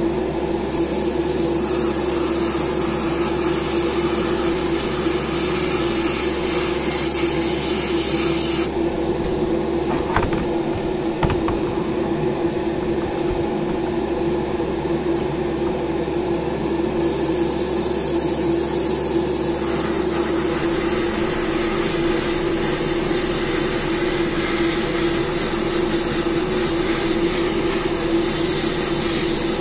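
Steady whirring hum and rush of air from a hobby airbrush spray booth's fan running without a break.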